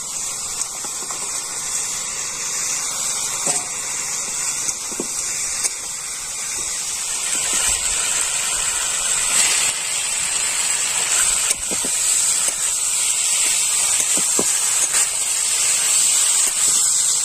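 Pieces of goat head meat sizzling in hot spiced masala in a metal kadai, stirred with a steel spatula that scrapes and knocks the pan now and then. The sizzling grows louder about halfway through.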